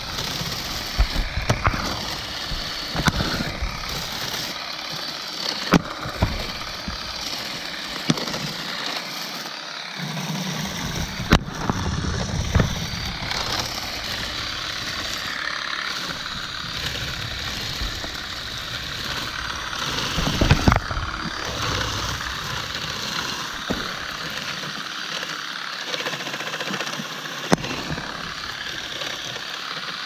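Electric olive harvester, a pole-mounted shaker with vibrating comb fingers, running steadily as it beats through olive branches, with scattered sharp clicks and knocks.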